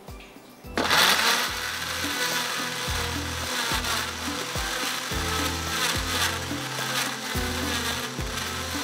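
Electric blender starts about a second in and runs steadily, grinding green chutney of coriander, mint, green chilies and raw mango.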